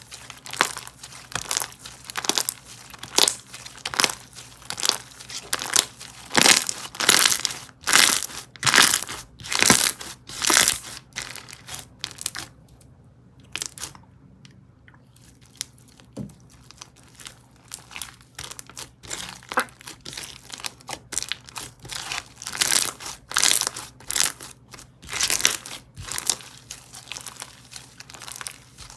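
Hands squishing and stretching a cereal-textured slime in a run of crackling, crunchy squelches, about one to two a second, with a pause of a few seconds about halfway through.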